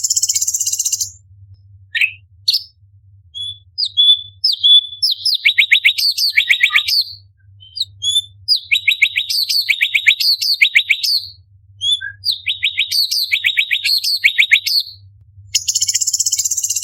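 Orange-bellied leafbird singing: short clear whistles and rapid runs of downward-sweeping notes, several a second, repeated in phrases. A harsh, high buzzing rattle sounds at the start and again near the end, over a faint low hum.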